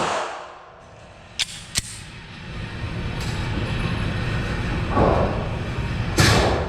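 9mm pistol shots echoing in a large room: the tail of one shot at the start, a softer shot about five seconds in and a loud sharp shot near the end. Two short light clicks come between them early on.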